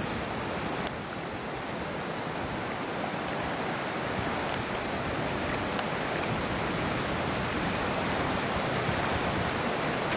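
Steady rush of a fast-flowing river running over rapids and stones, with a slight drop in level about a second in.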